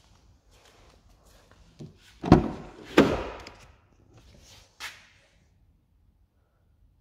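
Rear door of a BMW 1 Series hatchback being opened: two loud clunks about half a second apart, then a lighter click.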